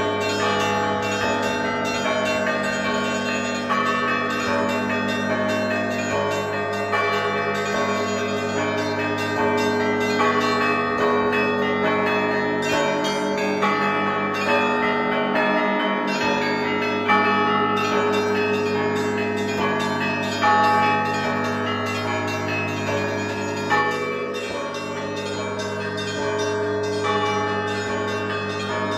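Orthodox monastery bells of the Zhirovichi Monastery rung together: smaller bells struck in quick, overlapping patterns over the steady hum of a large bell, with a few heavier strokes in the second half.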